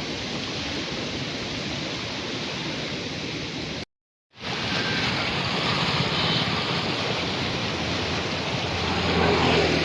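Surplus water from a full reservoir rushing through its outflow sluices and canal: a steady rush of water. It drops out for about half a second around four seconds in.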